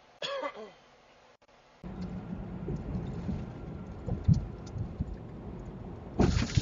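Truck cab road noise picked up by a dashcam at highway speed: a steady low rumble with scattered knocks, and a sudden loud rush near the end. A short falling tone sounds about a quarter second in, before the rumble starts.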